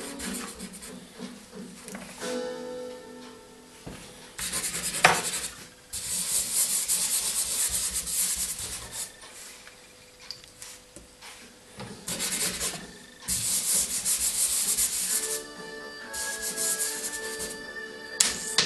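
Dry pastel being rubbed onto paper by hand: scratchy rubbing strokes in spells of one to three seconds with short pauses between, and a sharp knock about five seconds in. Faint background music with held notes runs underneath.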